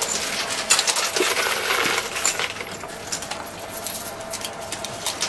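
Quarters clinking and dropping in a coin pusher arcade machine: a rapid run of metallic clinks, busiest in the first half and thinning out toward the end.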